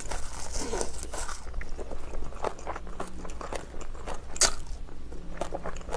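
A mouthful of napa cabbage kimchi and rice being bitten and chewed: a run of short crisp crunches and clicks, the loudest crunch about four and a half seconds in.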